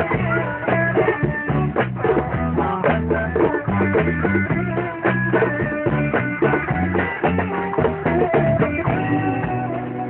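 Live band playing a song on guitar and drum kit with a steady beat.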